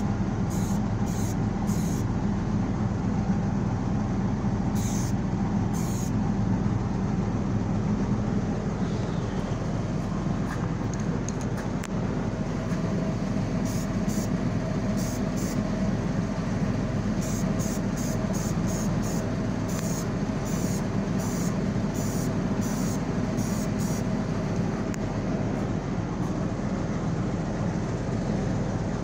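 Short, sharp hisses from an aerosol spray can of primer fired in quick dabs, a few early and a rapid run of about a dozen later, over a steady machine drone with a low hum.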